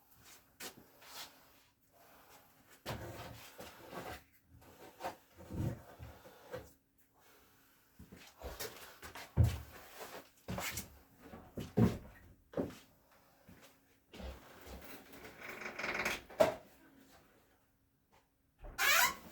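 Wooden dresser drawers being handled: irregular wooden knocks, clunks and short scrapes as drawers slide and are set down.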